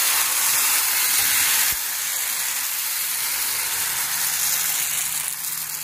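Crêpe batter sizzling in a hot buttered nonstick frying pan: a steady hiss that drops a little, suddenly, a couple of seconds in.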